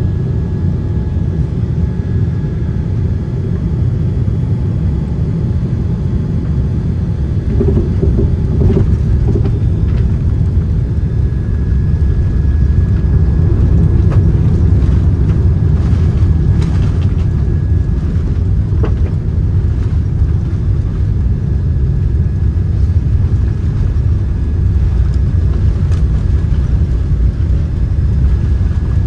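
Steady low rumble inside an airliner's cabin as it rolls along the ground after landing: engine and wheel noise droning, with a few faint clicks partway through.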